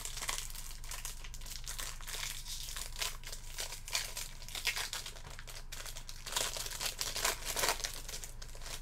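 Plastic trading-card pack wrapper crinkling as it is handled, a dense crackle with louder bursts about six to eight seconds in.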